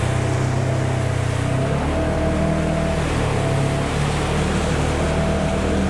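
Polaris side-by-side engine running as it drives through water across a dirt track, with a steady hiss of splashing water over it. The engine note shifts about two seconds in.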